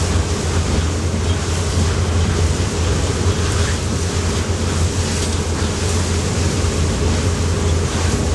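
Passenger ferry under way: a steady low engine drone under a constant rush of wind and water.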